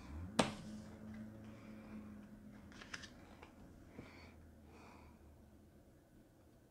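Playing cards being handled at a table: one sharp click about half a second in, then a few faint ticks and light rustling.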